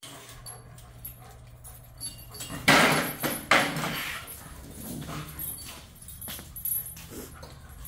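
Dogs play-fighting, with two loud, rough growling bursts close together about three seconds in and fainter scuffling around them.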